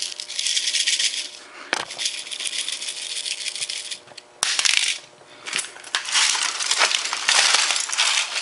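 Shattered glass platter fragments of a laptop hard drive rattling and clinking, in several bursts of crunchy jingling, densest near the end.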